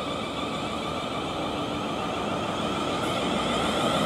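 South Western Railway Class 450 Desiro electric multiple unit pulling away and passing close, its traction motors giving a whine of several steady tones over the running noise of its wheels on the rails. It grows slightly louder near the end.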